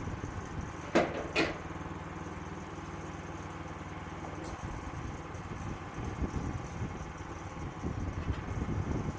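Sawmill engine running steadily at low speed, with two sharp knocks close together about a second in.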